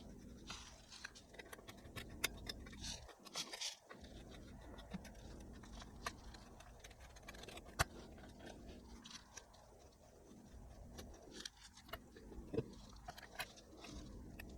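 Faint scattered clicks, taps and brief scrapes of small hardware being handled on a workbench, over a low hum.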